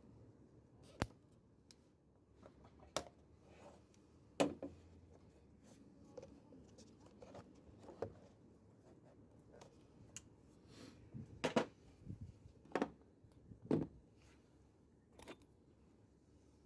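About a dozen sharp clicks and knocks at irregular intervals, with faint rustling between them: objects being handled and set down in a small room.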